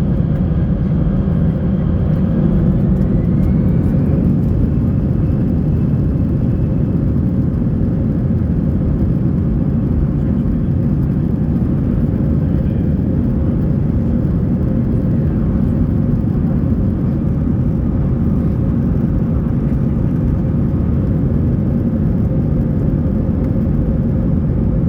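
Airbus A320 jet engines and airflow heard from inside the cabin as a loud, steady roar, with a faint whine rising in pitch in the first few seconds.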